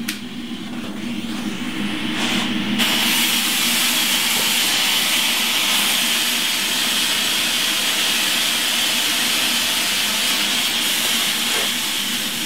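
Potassium nitrate and sugar rocket candy pellets being lit and burning with a loud, steady hiss. The hiss starts suddenly about three seconds in.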